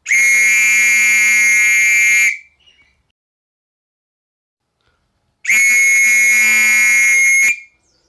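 A whistle blown in two long blasts of about two seconds each, the second starting about five and a half seconds in. Each blast holds one steady, piercing note with no warble.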